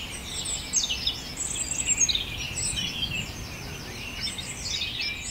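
Many small birds chirping and trilling together, their calls overlapping continuously over a low, steady outdoor background rumble.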